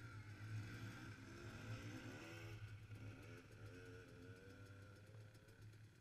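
Faint dirt bike engines revving up and easing off under load on a steep climb, over a steady low hum. The revving fades after about three seconds.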